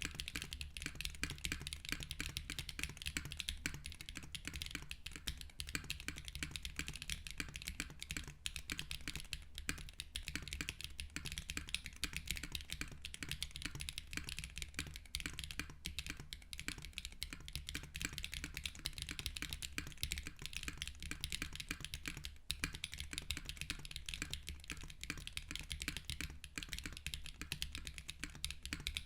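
Continuous fast typing on a mechanical keyboard with Keygeek Y1X linear switches, mounted on an aluminium plate with no foam and topped with GMK keycaps. It makes a loud, dense, even clatter of keystrokes over a steady low hum.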